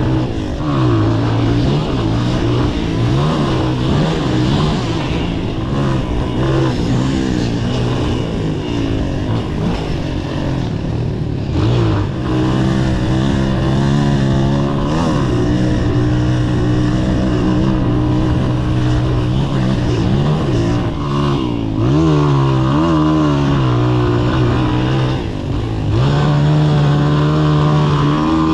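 Honda XL125S single-cylinder four-stroke engine revving hard under load as the bike is ridden round a dirt track, recorded on board. The note rises and falls repeatedly, with several sharp drops as the throttle is worked and gears change.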